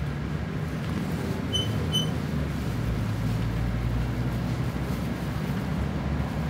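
A Mercedes-Benz Citaro O530G articulated bus's engine running steadily, heard from inside the bus as a low rumble. Two short high beeps come about a second and a half in.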